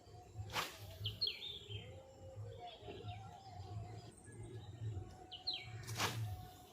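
Birds chirping in short, quickly falling calls, twice. Two brief sharp noises about five seconds apart, over a low rumbling background.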